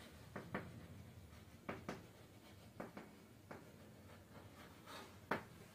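Chalk writing on a blackboard: a handful of faint, irregular taps and short scratchy strokes.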